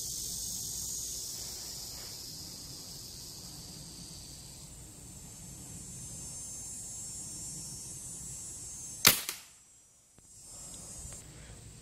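A single shot from a Daisy Powerline 880 multi-pump pneumatic air rifle about nine seconds in: one sharp report with a short tail. Under it, a steady high insect hiss.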